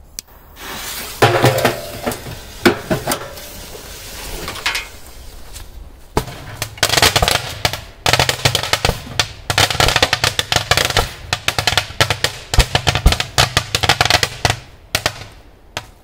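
A small firework cake going off inside a washing machine's drum with the lid shut. At first come scattered bangs and crackle, then from about six seconds in a dense, rapid volley of shots and crackling that stops shortly before the end.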